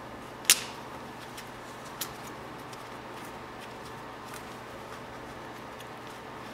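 Sharp metal clicks of a screwdriver prying at a brake pad wear sensor: one loud click about half a second in, a smaller one about two seconds in, and faint ticks between.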